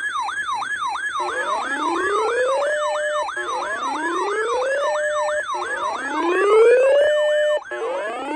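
Electronic emergency sirens sounding together. A fast yelp sweeps up and down about two and a half times a second, overlaid by a slower wail that rises over about a second and a half, holds briefly and drops, repeating every two seconds or so.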